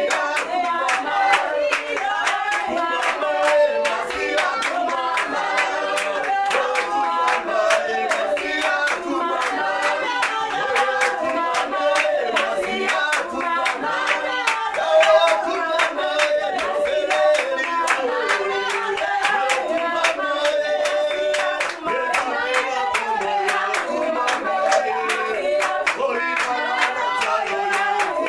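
Congregation singing a worship song together with steady rhythmic hand clapping, about three claps a second.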